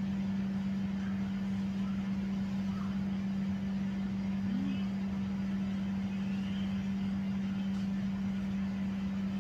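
A steady low hum on one unchanging tone, over a faint rumble.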